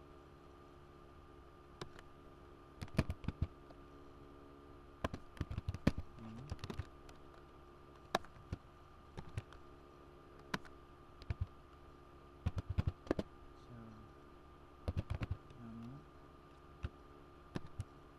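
Typing on a computer keyboard: short bursts of keystrokes with pauses between them, over a faint steady hum.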